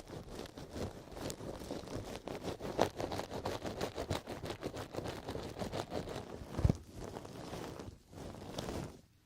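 Artificial grass sheet patted and rubbed against an ear-shaped binaural microphone: a dense, crackling rustle of many quick taps, with one louder knock a little under seven seconds in. It stops just before the end.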